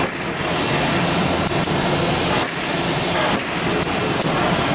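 Loud factory machinery noise: a steady rush with a high-pitched whine that cuts in and out every second or two, and a few sharp metallic clicks.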